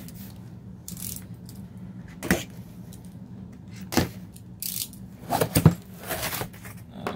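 Long cardboard shipping box being handled and opened: a string of separate scrapes, knocks and rustles of cardboard flaps, loudest about two-thirds of the way through. A faint steady low hum runs underneath.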